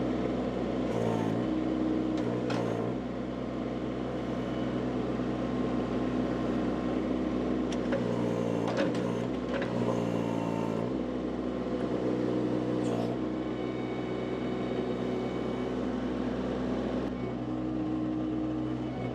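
Baumalight mini skid steer engine running steadily while working, its engine note dipping and recovering several times, with a few light knocks along the way.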